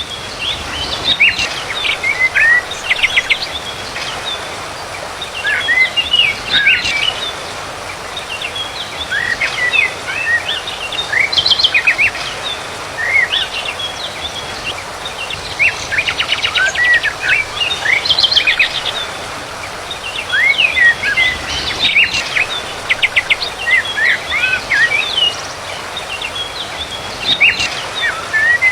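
A songbird singing in phrases a few seconds apart. Each phrase mixes quick chirps and whistles with rapid trills, over a steady background hiss.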